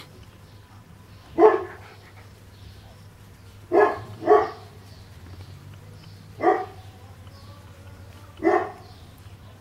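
A 40-day-old Cane Corso puppy barking in play: five short barks spaced a second or two apart, two of them in quick succession about halfway through.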